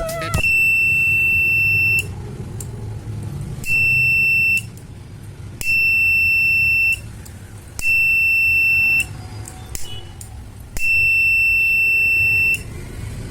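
A 5 V buzzer in a BC547 transistor fire-sensor circuit sounding a steady, high, shrill tone in five bursts of one to two seconds each, switching on and off irregularly as the photodiode sensor is triggered.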